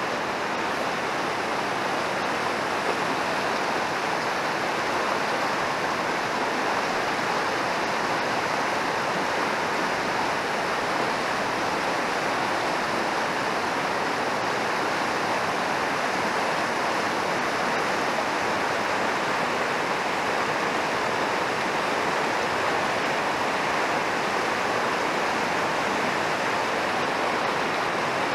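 Fast mountain river rushing over rocky rapids: a steady, unbroken rush of whitewater.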